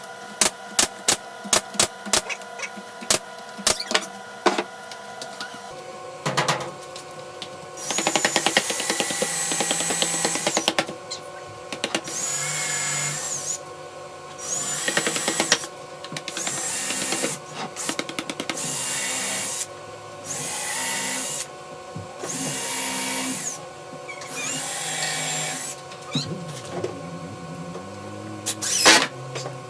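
Cordless drill-driver running in about eight short bursts, its motor whine rising at each start and falling away at each stop, as it drives screws. Before the bursts come a quick run of sharp clicks.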